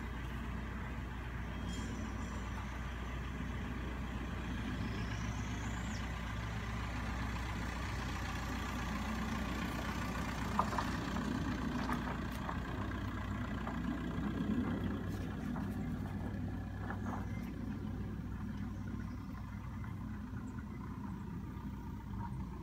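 A machine running steadily with a low, even hum, with a few faint ticks over it.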